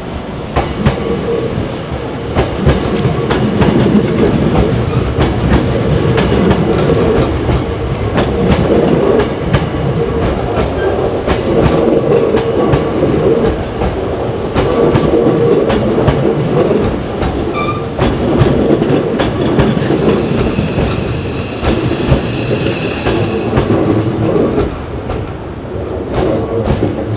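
Hankyu electric train running close by along the station tracks, its wheels clicking over the rail joints.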